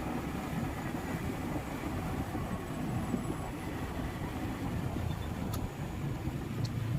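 Steady low rumble of a motor vehicle, with a couple of faint clicks near the end.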